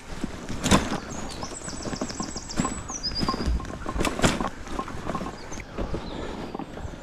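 Loaded bikepacking bike rolling down a rough, muddy woodland singletrack: tyres on mud and roots, with the bike and its bags rattling and knocking over bumps, a few knocks standing out sharply.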